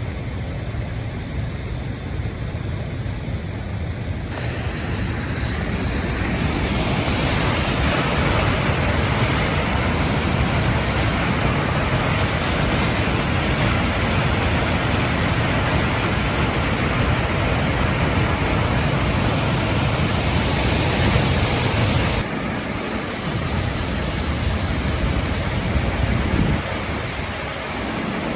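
Steady rush of falling water from the Harajiri Falls, a wide curtain waterfall. The sound changes abruptly about four seconds in and again near the end.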